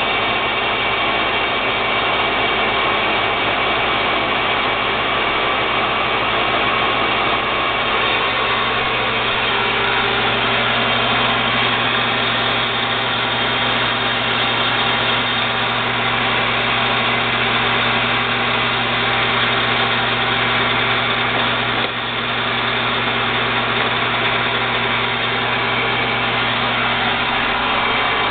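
TurnPro 14 x 40 inch metal lathe running steadily under power with the apron engaged for threading, its gear train driving the carriage feed; a steady machine hum with several held tones.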